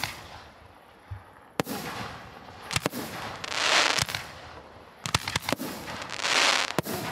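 Aerial fireworks shells launching and bursting: several sharp bangs, each burst followed by about a second of swelling hiss, once about three and a half seconds in and again past six seconds.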